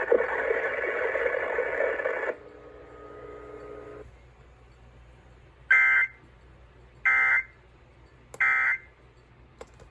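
NOAA Weather Radio sounding three short bursts of SAME digital data tones, about a second and a half apart: the end-of-message code that closes the Required Weekly Test. The radio's broadcast sound cuts off about two seconds before the first burst.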